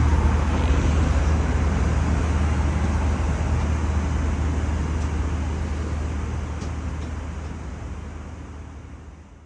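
Steady airliner cabin noise, a constant low rumble with a hiss of airflow over it, fading out near the end.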